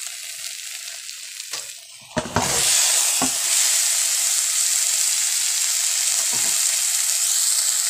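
Spiced masala paste sizzling in a hot kadai. About two seconds in, boiled potatoes and green peas go into the pan with soft thuds, and the sizzle jumps much louder and stays steady, with a couple more thuds later.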